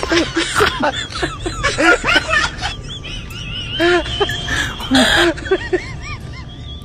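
Several people laughing and calling out in short bursts, without clear words.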